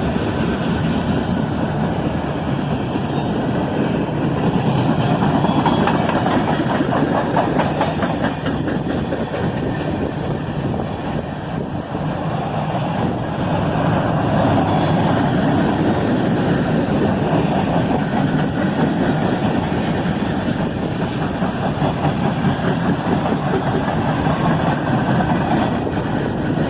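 Freight train cars rolling past in a steady rumble, with the wheels clicking rapidly on the rails.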